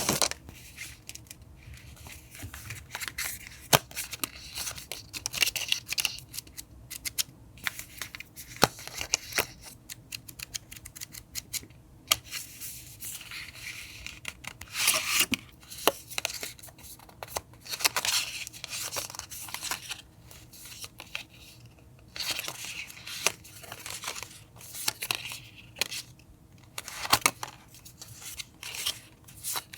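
Scissors snipping through paper, with paper being torn and rustled between cuts, in an irregular run of crisp snips, clicks and scrapes.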